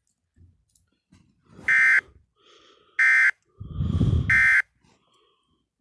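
Emergency Alert System end-of-message data tones: three short, identical, harsh digital bursts about 1.3 seconds apart, marking the end of the alert. A loud low rumble runs under the third burst.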